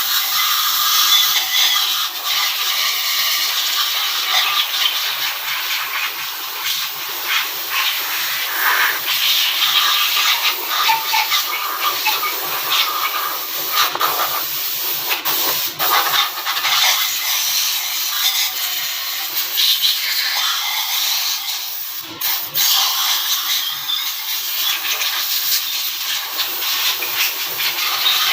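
Steady, loud hissing, with a few short clicks about halfway through and again a little later.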